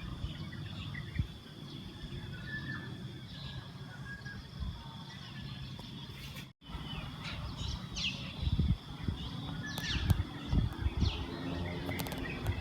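Outdoor ambience of birds chirping in short, scattered calls over a low rumble and a steady high whine. The sound drops out for an instant just past halfway.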